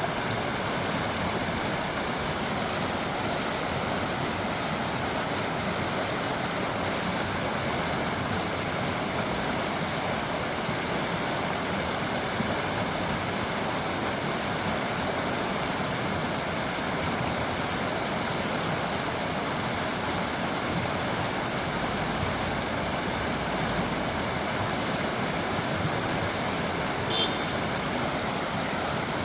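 Creek water babbling and rushing steadily over stones, an even continuous flow with no pauses.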